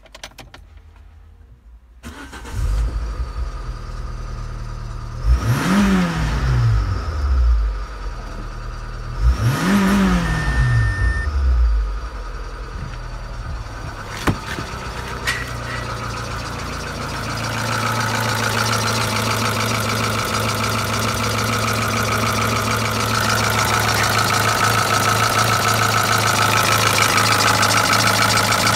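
Renault Espace III 2.0i F4R700 petrol four-cylinder engine starting, given two quick revs that rise and fall in pitch, then settling into a steady idle. Near the end it is heard louder and closer, with a steady whine over the idle.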